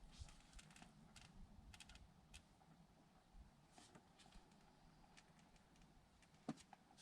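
Near silence with faint scattered clicks and a low rumble, and one sharper click near the end.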